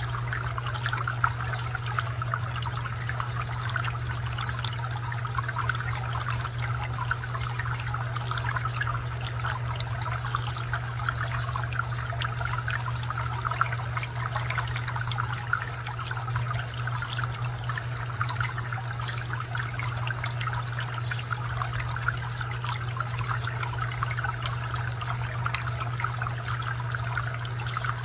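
Garden fountain water trickling and splashing steadily, over a constant low hum.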